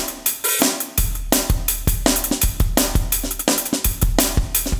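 Medeli MZ928 electronic drum kit played with sticks on its "Piccolo Boom" kit preset: a steady groove of kick drum, snare and cymbal hits.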